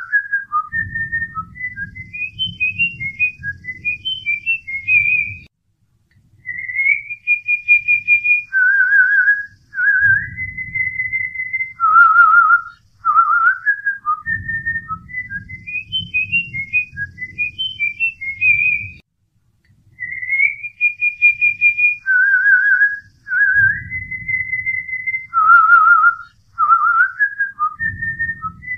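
Background music: a whistled melody of wavering and gliding notes over a soft, low pulsing accompaniment, the same phrase looping about every 13 seconds.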